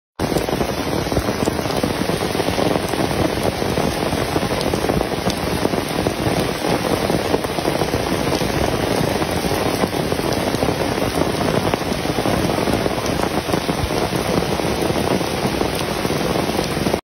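Heavy rain falling steadily on stone and leaves: a dense, even hiss with scattered sharper hits of single drops.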